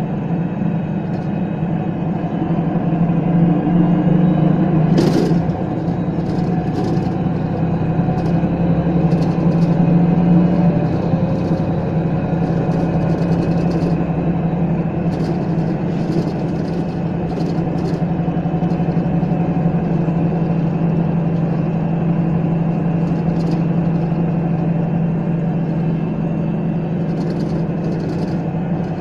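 Setra S 315 NF bus under way: the engine drones steadily, its pitch rising slowly for a few seconds as the bus picks up speed, with light rattles throughout and one sharp clack about five seconds in.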